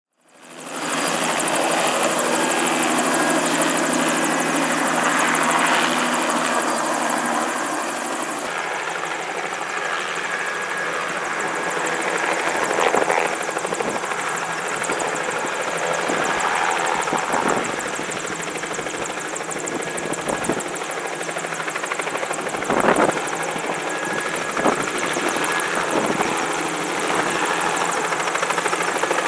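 Bell 206 JetRanger helicopter close by, its turbine and two-blade rotor running as it hovers low and then lifts away. It fades in at the start and runs steadily, with a few brief louder thuds from the rotor.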